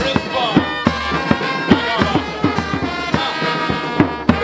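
Brass band with trombones playing a tune over a steady drumbeat.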